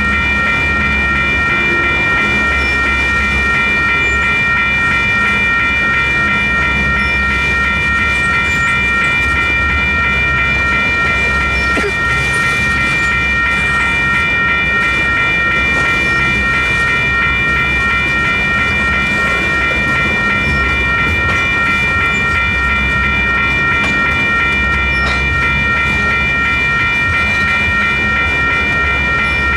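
Two WCH electronic railroad crossing bells ringing steadily and continuously while the gates are down. Under them, the low rumble and clickety-clack of loaded tank cars rolling past on a freight train.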